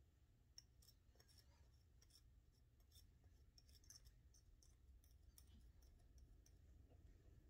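Near silence: faint, scattered small ticks and scratches of fingers handling a small balsa crankbait body and working baking soda onto it, over a low steady hum.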